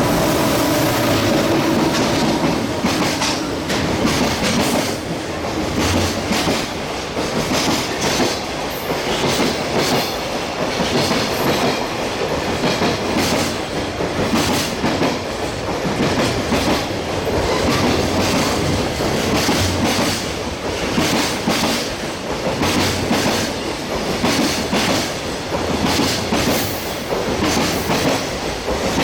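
A train running along the platform track, its wheels clacking over rail joints again and again over a steady rumble.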